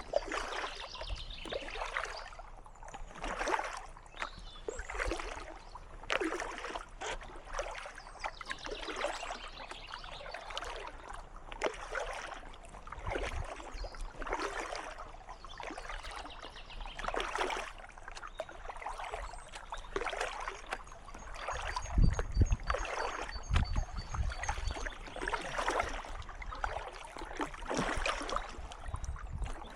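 Kayak paddle strokes dipping into calm water, a splash and drip about every second or so in a steady rhythm. A few low thumps come about two-thirds of the way in.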